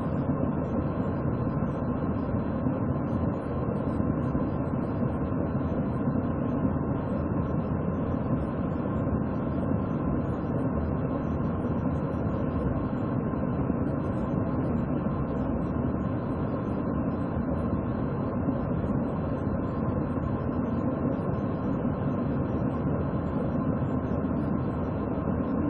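Steady, even low rumble and hiss from the parked patrol car's idling engine, with no distinct events.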